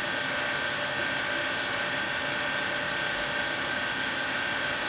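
Steady high-pitched hiss and whine of the high-voltage supply driving a krypton plasma glow discharge in an evacuated glass bottle.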